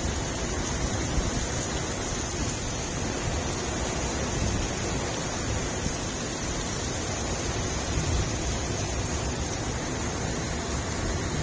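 Heavy rain pouring down steadily in a windy storm, a dense even hiss with a low rumble of wind underneath.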